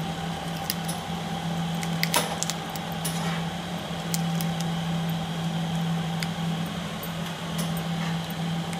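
A steady low hum, with scattered small clicks and soft wet squishes as hands pull the gills off a raw crab and handle its shell over a pot of water.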